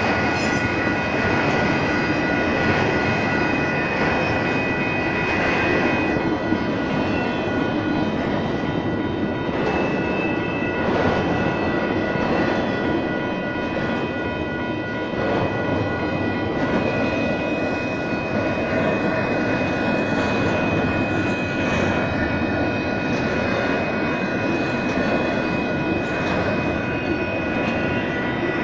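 Intermodal freight train cars rolling steadily through a grade crossing, with the rumble and clatter of wheels on rail. Over it, the crossing's electronic bells ring with steady high tones.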